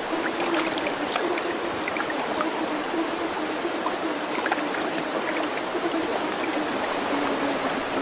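Steady running-water noise like a flowing stream, with a faint steady hum underneath.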